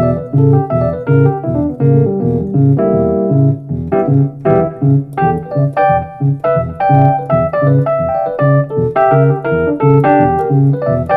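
Roland RD-08 digital stage piano playing a Rhodes-style tine electric piano patch, with a bass line repeating about twice a second under chords. The patch is EQ'd with treble and mids cut and bass boosted, and it sounds a little bassy.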